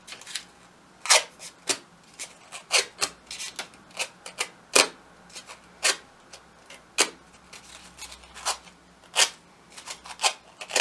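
Crepe-paper petals being curled by drawing them over a scissor blade: short, dry scraping strokes, one or two a second at an uneven pace.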